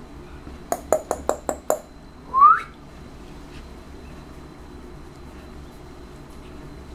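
Six quick mouth clicks from a person, then a short rising whistle, the loudest sound, made to catch a young puppy's attention.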